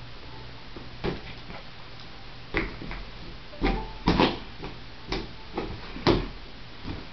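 A small dog batting and biting an inflated rubber balloon: a run of irregular sharp taps and thumps, loudest about four and six seconds in.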